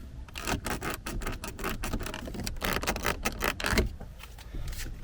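Skoda Kodiaq's untreated rear-door interior handle creaking and clicking over and over as it is squeezed by hand, which stops about four seconds in. This is the squeak from the handle's clip-together parts that has not yet been treated with anti-squeak tape.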